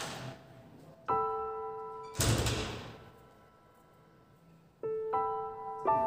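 Background music: sparse piano-like notes, each struck and left to ring, about a second in and again near the end. Between them comes a short, loud rush of noise, the loudest thing heard.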